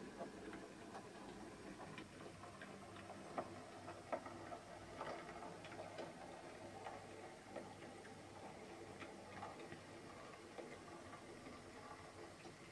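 H0e narrow-gauge model train, a small Posch C50 model diesel locomotive with wagons, running on the layout track: faint, irregular clicking of its wheels over rail joints and points, a few clicks louder than the rest, over a faint steady hum.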